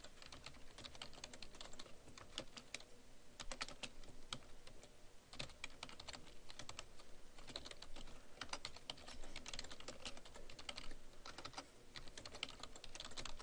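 Typing on a computer keyboard: a steady run of irregular key clicks.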